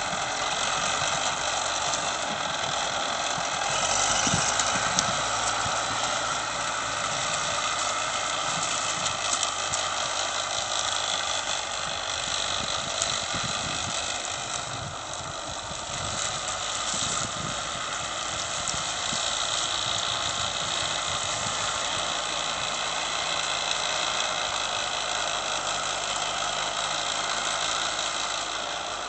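Caterpillar 944 wheel loader's diesel engine running steadily while it works a pile of felled oil palm trunks, with a few short knocks.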